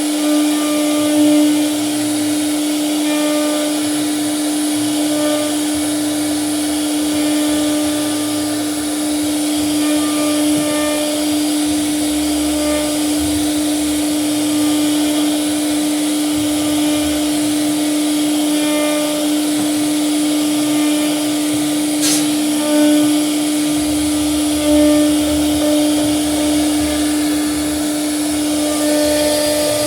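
CNC router spindle running steadily under load with a constant high whine, cutting wood; one sharp click about three-quarters of the way through.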